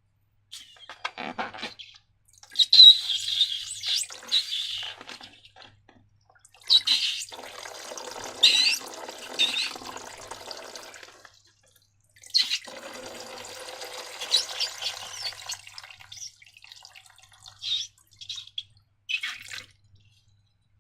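Wet slime squelching and squishing in three longer stretches with short sticky squeaks, then a few brief squelches near the end.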